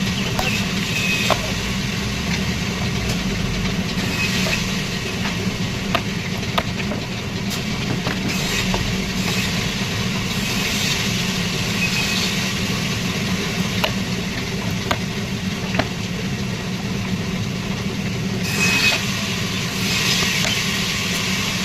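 Sawmill machinery running steadily with a low hum, with a few sharp knocks scattered through it.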